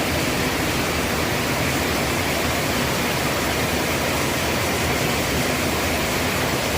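Steady rush of a mountain valley stream, an even noise that runs on without change.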